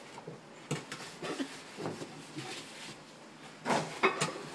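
A man's coveralls rustling and scraping against the floor and the edges of a tight hole as he wriggles and pushes to get out, in irregular bursts. The loudest bursts come near the end.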